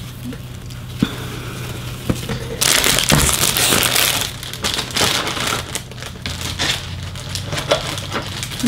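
Packaging being handled and crinkling, loudest for a few seconds in the middle, with softer rustles and small clicks before and after.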